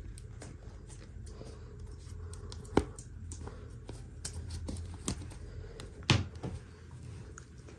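Hands handling small plastic toys and packaging: a run of light clicks and taps, with two sharper knocks, about three and six seconds in.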